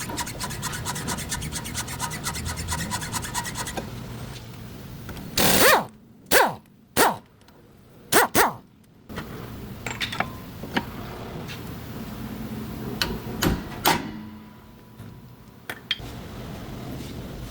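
Car's rear suspension creaking and squeaking: a rapid, regular rubbing tick for the first few seconds, then five loud creaks sliding in pitch, followed by scattered clicks. This is the noise of a worn rear wheel spindle bush.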